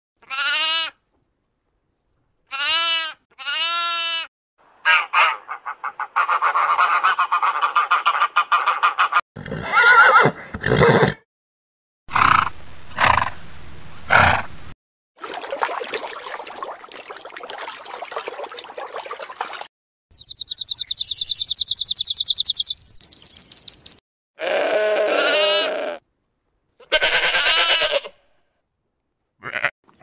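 A string of different animal calls edited one after another, each cut off short with silent gaps between. There are falling pitched cries, pulsed and grating calls, a long rasping stretch, and a high rapid trill about two-thirds through.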